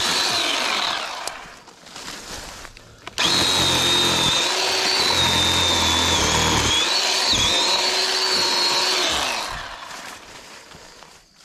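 Chainsaw revved to speed while cutting through saplings and brush: a short run that winds down near the start, then after a pause a longer steady run of about six seconds with a high whine, winding down near the end.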